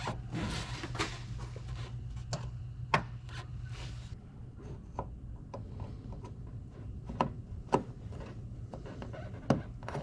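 Hand-handling noise from a release cable being worked into a car body: rubbing and rustling for about the first second, then scattered light clicks and knocks of plastic and metal.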